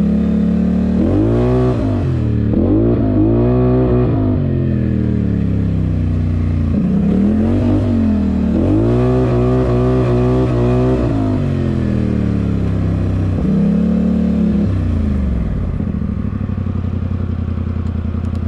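Polaris Sportsman XP 1000 S ATV's twin-cylinder engine under way, accelerating in several bursts with its pitch rising and falling, then running steadily before cutting off near the end.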